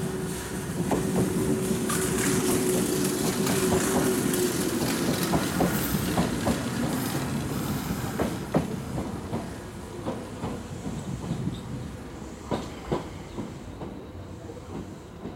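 Kintetsu electric commuter train pulling into the platform and slowing to a stop. Its wheels clack over the rail joints while its running rumble dies away, with a steady hum that fades about four seconds in.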